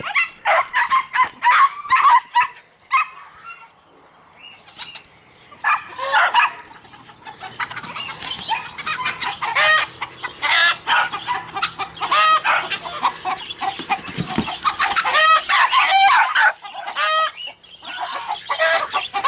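Chickens clucking and squawking over and over, alarmed by a dog chasing them. After a brief lull a few seconds in, the calls come thick and fast for the rest of the time.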